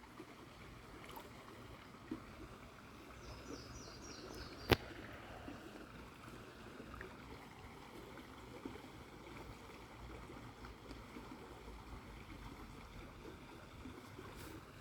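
Faint steady outdoor background noise, broken by one sharp click a little under five seconds in and a fainter click about two seconds in. A brief run of high chirping notes comes just before the loud click.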